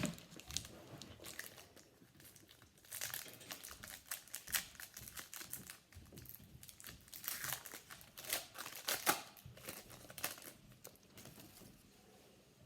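Foil wrapper of a football trading card pack being torn open and crinkled, in irregular crackling bursts.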